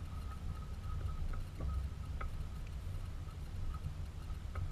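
Wind buffeting the microphone: a steady low rumble, with a faint thin high tone coming and going behind it.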